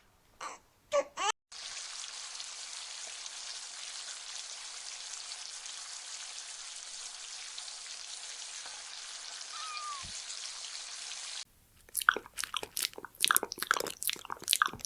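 A steady, even hiss for about ten seconds that cuts off suddenly, followed by quick, crunchy clicks of chewing.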